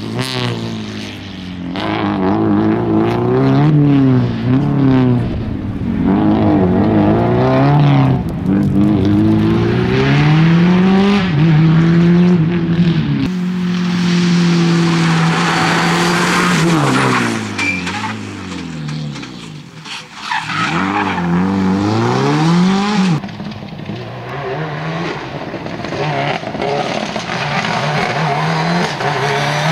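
Subaru Impreza rally car's flat-four engine driven hard, its pitch rising and falling again and again as it accelerates, changes gear and slows for corners. It drops to a low, quieter rumble about two-thirds of the way through before picking up again, with some tyre squeal through the corners.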